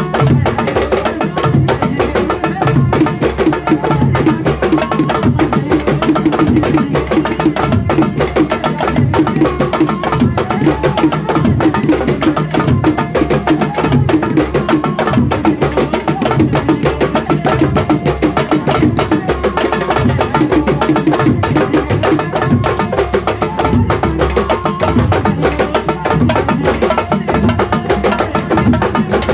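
Sabar drums played in a fast, dense, unbroken rhythm, the drumming that goes with Senegalese traditional wrestling.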